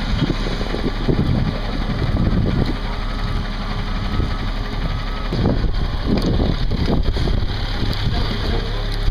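Fire truck engine running with a steady low hum, while uneven low bursts of noise come and go over it, strongest about half a second in and again around six to seven seconds in.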